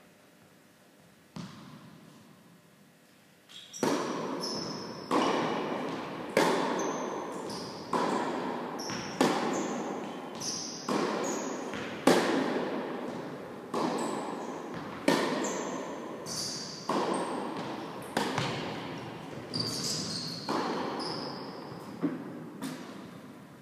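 Tennis balls being struck and bouncing on an indoor court: a string of sharp knocks about one a second, each ringing out in the large hall's echo. The knocks start after a quiet opening, apart from one knock early.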